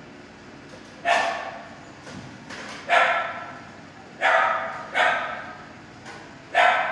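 Dog barking in a shelter kennel block: five single loud barks, one to two seconds apart, each ringing out off the hard walls.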